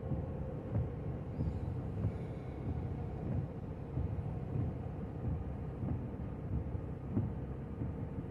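Steady low road and engine rumble inside a moving car's cabin, with a faint constant hum over it.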